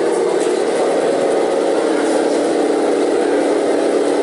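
Simulated engine sound from a 1/16 Tamiya Centurion RC tank's electronic sound unit, played through its small loudspeaker as the tank drives, a steady even drone.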